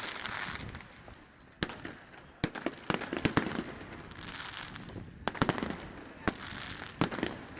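Aerial fireworks bursting: single sharp bangs and quick clusters of reports, with the crackle of the bursting shells between them.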